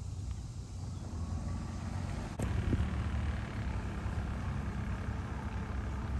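Outboard motor on a small aluminium jon boat running steadily as the boat approaches, over a low rumble. A sharp click about two seconds in, where the sound jumps louder.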